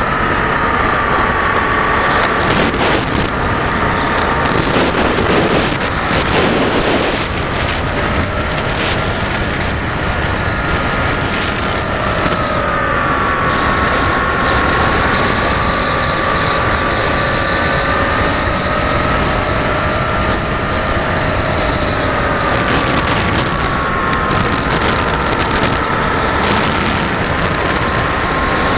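RC model aircraft's motor and propeller heard from the onboard camera in flight, a steady whine that drifts up and down in pitch with the throttle, under heavy wind rush over the microphone.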